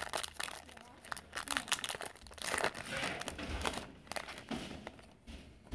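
Foil wrapper of a Yu-Gi-Oh! booster pack crinkling and rustling as it is handled and torn open, a dense run of crackles that thins out after about four seconds.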